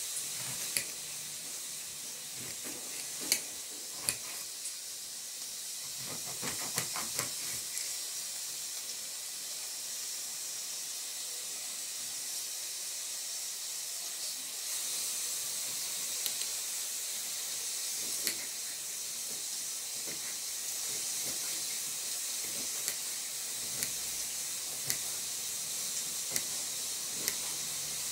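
Knife cutting bitter gourd and greens: scattered sharp clicks and taps of the blade, a small cluster of them a few seconds in, over a steady high hiss.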